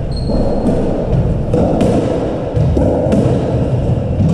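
Racket-and-ball rally on an indoor court: a series of sharp hits as the ball is struck and smacks off the walls and floor, a few each second, with a brief high shoe squeak on the wooden floor early on.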